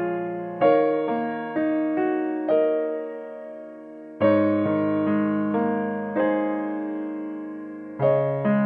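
Background solo piano music: a slow melody of single notes that ring and fade, with a fresh chord struck about every four seconds.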